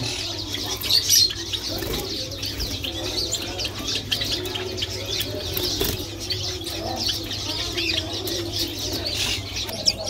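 Small caged finches, pin-tailed whydahs among them, chirping in quick, high, overlapping notes, with wings fluttering as birds flit between perches. A steady low hum runs underneath.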